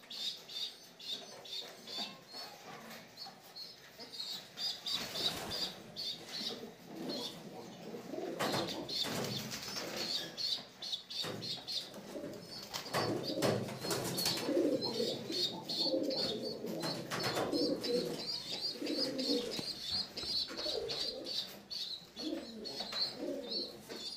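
Domestic pigeons cooing in a loft of nest boxes, over a constant high, rapid chirping. Wing flaps come about five seconds in and again around the middle.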